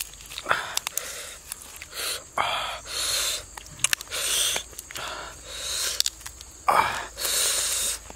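A roasted duck being torn apart by hand: a run of short ripping and crackling noises from the charred skin and meat, with small sharp clicks in between.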